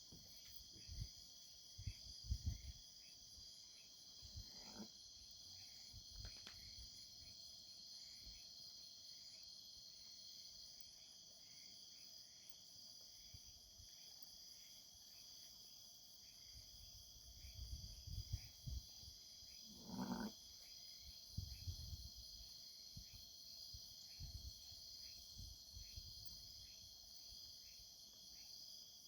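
Night-time chorus of crickets and other insects trilling steadily, with a faint chirp repeating a little more than once a second. Irregular low rumbles on the microphone, and a short faint call twice, about five seconds in and again around twenty seconds.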